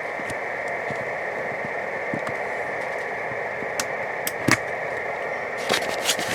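A steady hiss with a few light clicks and knocks of handling, a sharper click about four and a half seconds in and several more near the end, as the camera is set down and a microphone plug is handled.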